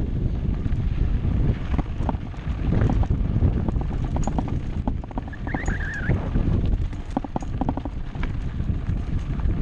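Wind buffeting a GoPro's microphone on a moving mountain bike, with the bike rattling and knocking over rough ground. A short wavering squeal sounds about halfway through.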